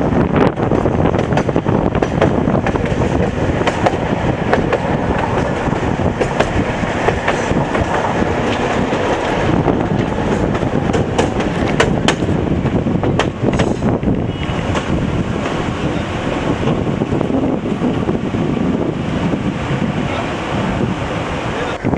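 Tatra T3 tram running along its track, heard from on board: a steady rumble of wheels and running gear with irregular clicks and clacks as the wheels cross rail joints.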